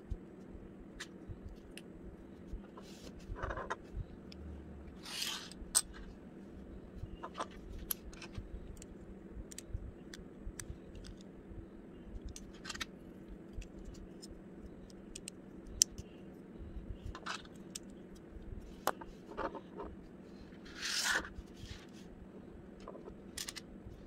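Plastic Lego bricks and plates being handled and pressed together: irregular sharp clicks and snaps, with a couple of brief scraping rustles of pieces, over a faint steady hum.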